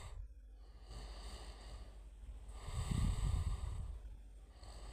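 A person breathing out heavily close to the microphone, once about three seconds in, over a low steady hum.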